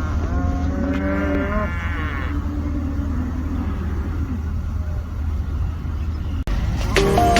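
Cattle mooing, a few long drawn-out calls over the steady low rumble of a vehicle engine. Music starts abruptly near the end.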